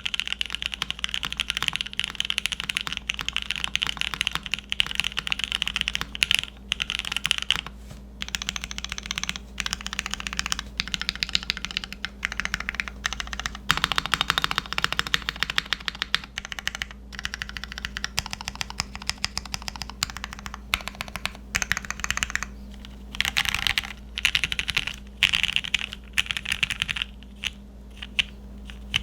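Continuous typing on a Cannon Keys Brutal60 WKL mechanical keyboard with mauve linear switches fitted with Gateron Milky top housings, an FR4 plate in a burger mount and GMK Modern Dolch keycaps: a dense run of keystroke clacks in bursts with brief pauses, lighter near the end.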